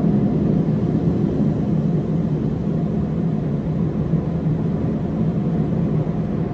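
Car wash blower dryers running, heard from inside the car as a steady, loud rush with a low hum, slowly fading as the car moves away from them.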